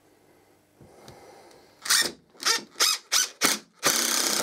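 DeWalt XR cordless impact driver driving a screw into a plastic wall plug in brick: the motor spins briefly, then the impact mechanism hammers in about five short bursts, followed by a longer burst of about half a second near the end.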